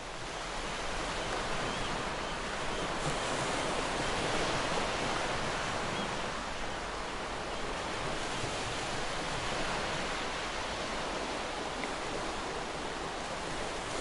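Steady rushing noise with no distinct events, swelling up in the first half second and then holding even.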